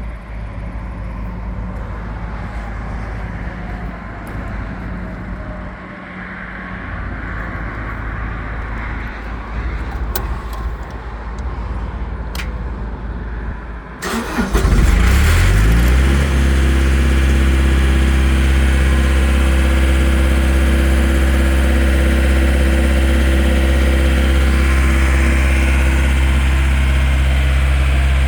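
A steady low hum with a few faint clicks. About halfway through, the John Deere 4024T four-cylinder turbodiesel of a 2011 Sullair 185 portable air compressor is cranked, catches within a couple of seconds and settles into a loud, steady idle.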